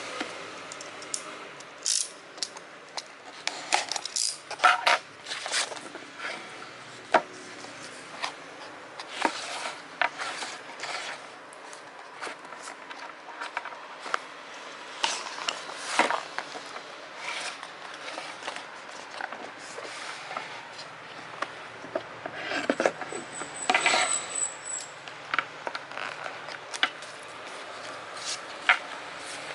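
Handling sounds from unboxing a Xiaomi Mi Box S TV box: scattered clicks, taps and rubbing of cardboard and plastic packaging, with a faint high whine for a couple of seconds about two-thirds of the way through.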